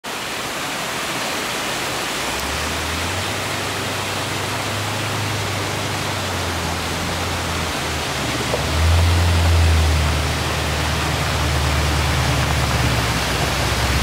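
Waterfall rushing steadily as twin ribbons of water pour down a rock face onto boulders. A low steady drone enters after a couple of seconds and swells about nine seconds in.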